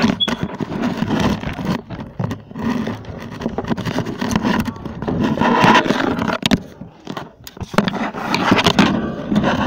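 Phone being handled with its microphone covered: close rubbing and scraping with many small irregular knocks, dipping briefly near the end.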